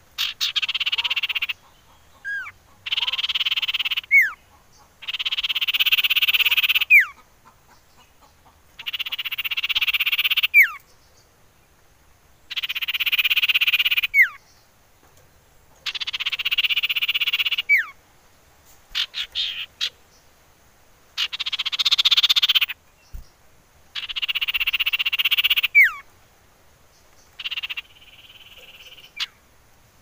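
Common iora singing: a series of about ten long rattling trills of one to two seconds each, most ending in a sharp falling whistle, with short pauses between.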